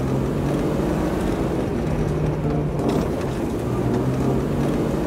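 Car engine sound effect: a steady engine rumble with a low hum that rises and falls slightly in pitch.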